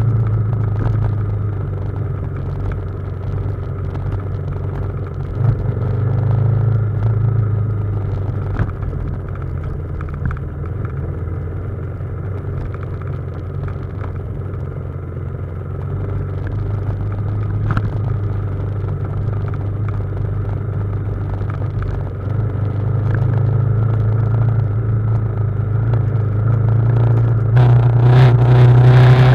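BMW G310GS single-cylinder engine running at low, fairly steady revs on a downhill dirt trail, with a few sharp knocks from the bike over rough ground. The engine gets louder near the end as the revs rise.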